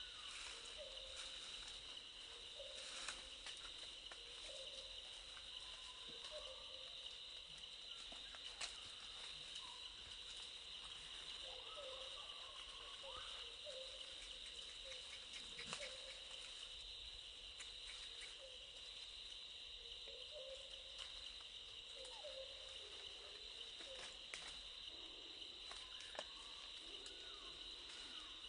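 A steady, high insect chorus in tropical forest, with short faint animal calls repeating every second or two and a few sharp clicks.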